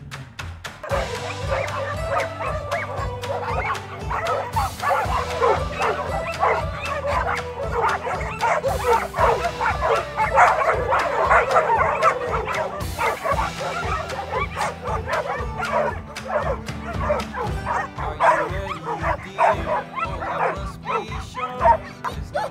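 A pack of dogs barking and yipping in excitement, many short barks overlapping throughout, over background music.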